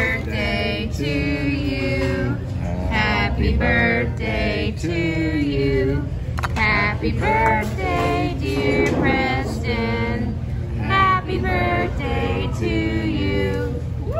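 Several voices singing a birthday song in held, wavering notes, over a steady low hum.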